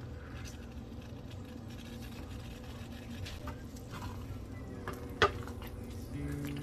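Wooden spoon stirring thick rice porridge in a wok, with soft scraping and light knocks against the pan and one sharp knock about five seconds in. Guitar music comes in near the end.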